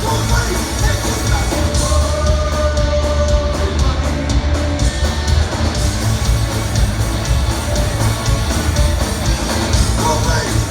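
Rock song played by a band, with guitar over a strong bass and a steady beat, and a sung line in places.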